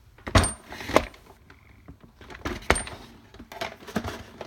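Hard plastic knocks and clunks of a Toto Neorest bidet seat unit being lifted and set onto the toilet. There are two sharp knocks about half a second apart near the start, another loud one past the middle, and fainter ones near the end.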